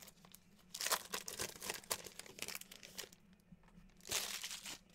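Foil wrapper of a trading card pack crinkling and tearing as it is handled and opened, with a burst about a second in and another near the end.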